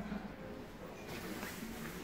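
Faint indoor background of distant voices, with a brief rustle about a second in.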